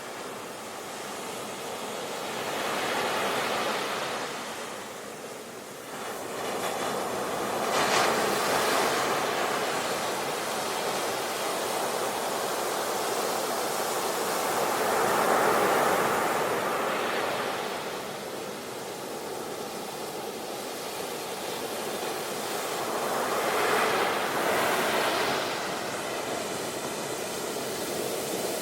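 Sea waves breaking and washing up a beach, each wave swelling and then hissing away, a few seconds apart.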